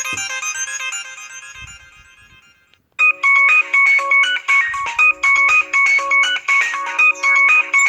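Samsung Gusto 3 ringtones: a melodic electronic tune fades out over the first few seconds. About three seconds in, a new ringtone starts: a fast, repeating pattern of short high notes.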